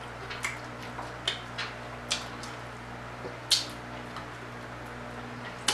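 A person eating a fried chicken wing close to the microphone: a few short, soft, wet mouth clicks and smacks, spaced irregularly, over a faint steady hum.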